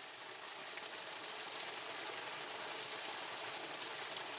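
Shallow irrigation-ditch water running over stones: a steady, rushing hiss that swells slightly over the first couple of seconds.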